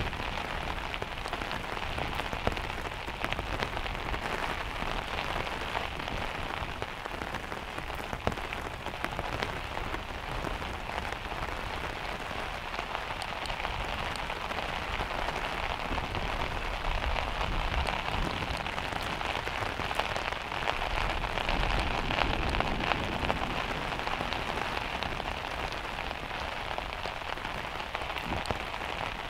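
Heavy rain falling steadily, a dense even hiss with scattered sharper taps of single drops.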